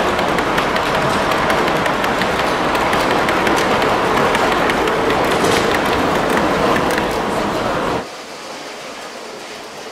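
Large-scale (G gauge) model train coaches rolling past on garden track: a dense rushing noise with many quick clicks from the wheels on the rails. About eight seconds in, it cuts off suddenly to a much quieter steady hiss.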